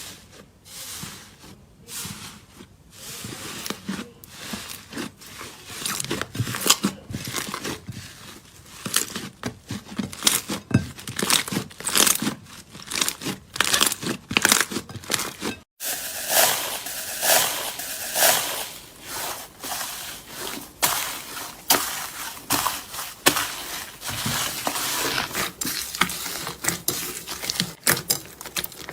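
Slime being squeezed and pressed by hands, giving a dense run of sharp crackles and clicks. A brief break comes about 16 seconds in, and a different slime follows.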